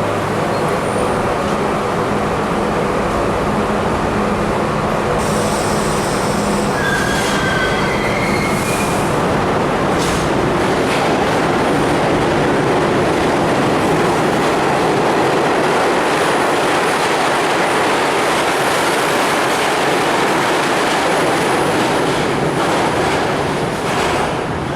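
R32 New York City subway car running through the tunnel, a steady loud rumble of wheels on rails, with brief high wheel squeals about a third of the way in.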